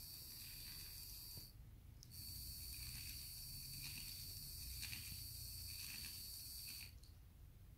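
Small electric hoist motor of a model jib crane whining steadily as it winds the hook cable. It stops about 1.5 s in, starts again about half a second later and runs for about five seconds, letting the hook down, then stops about 7 s in.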